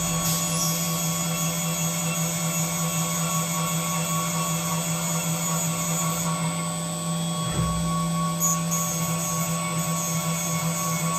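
CNC vertical milling machine cutting an aluminium part under flood coolant: a steady spindle hum and whine over the hiss of coolant spray, with one short low thud a little past halfway.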